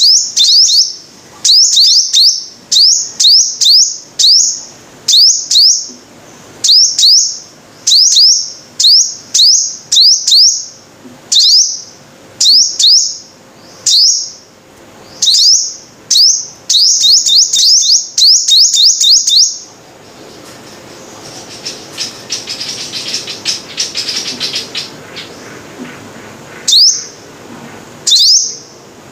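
Sunbird calling: short, sharp, high chirps that rise in pitch, repeated about once or twice a second. Near two-thirds through they come as a quick run, then give way to several seconds of softer, jumbled twittering before the sharp chirps start again near the end.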